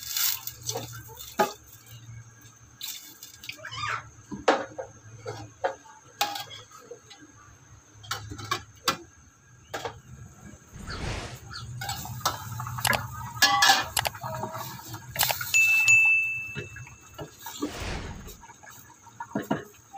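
Stainless steel cooking pot and lid clinking and clattering as they are handled, in scattered sharp metallic knocks with some ringing, over a low steady hum.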